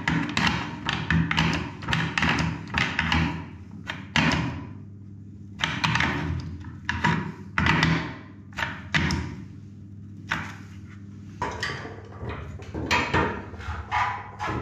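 Spanner on the compression nut and olive of a small water heater's copper feed pipe, tightening it: a run of short knocks and taps, irregular and close together.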